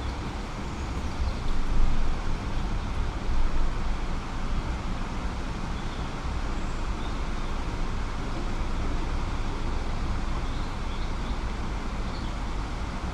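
City ambience: a steady low rumble of distant road traffic, with a couple of brief swells in level a few seconds in.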